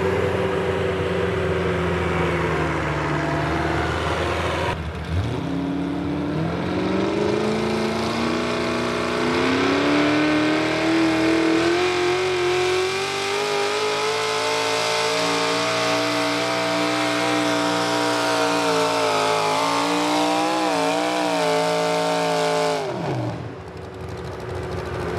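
V8-engined modified pulling tractor with a John Deere body, running at the line. It then climbs steeply in revs as it launches the sled, holds high revs down the track, wavers in pitch near the end and drops off sharply as the throttle comes off.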